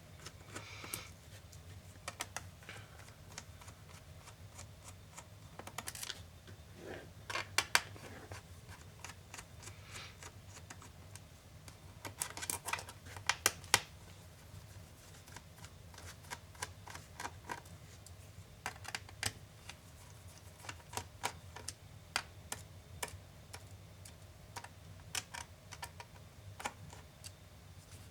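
Scattered small clicks and taps of hand tools on plastic laptop parts, with a few denser clusters about a quarter and half way through, over a faint steady low hum.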